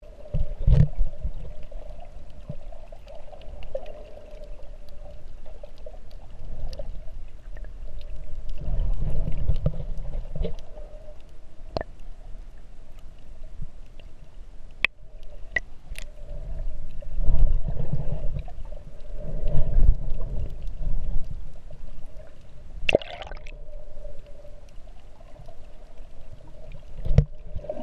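Underwater sound picked up by a camera inside its waterproof housing while snorkeling over a reef: a steady droning hum, muffled low rushes of water swelling now and then, and scattered sharp clicks.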